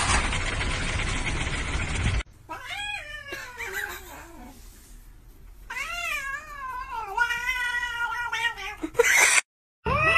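Tabby cat yowling: two long wavering yowls, the second lasting about three seconds. Before them, a loud rushing noise cuts off suddenly about two seconds in. Right at the end another cat starts a long, steady-pitched yowl.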